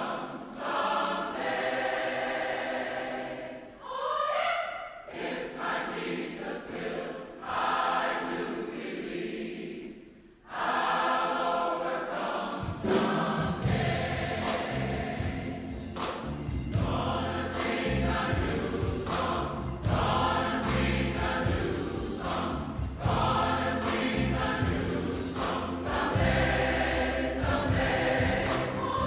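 Large choir singing a slow gospel hymn with orchestra. About twelve seconds in, bass and a drum kit come in beneath the voices and keep a beat to the end.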